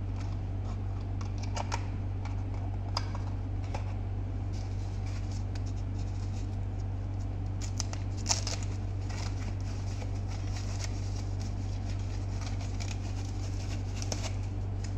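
Soft white packing wrap rustling and crinkling as hands pull it off a plastic dome camera, with scattered light clicks of handled packaging; the rustling turns denser from about halfway, with one sharper click just after halfway. A steady low hum runs underneath.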